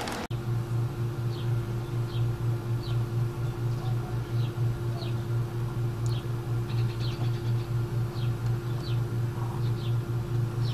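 A low mechanical hum pulsing about four times a second, with a steady higher tone over it. Faint short high chirps repeat about once a second.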